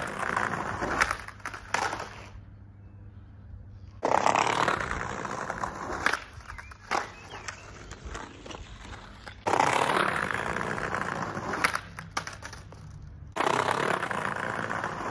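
Skateboard rolling on rough tarmac on new, larger OJ urethane wheels. The rolling noise comes in repeated runs a couple of seconds long, starting suddenly about 4, 9½ and 13½ seconds in. Sharp clacks and scrapes of the board come as it hits and slides along a concrete curb.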